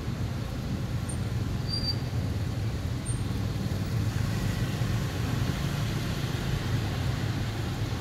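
Steady low rumble of road traffic, with a faint hiss over it.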